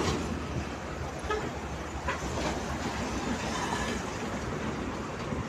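A car driving slowly over a railway level crossing close by, against steady road-traffic noise.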